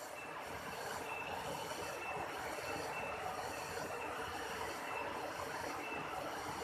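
Waterfall rushing with a steady roar, while a short high chirp repeats about twice a second.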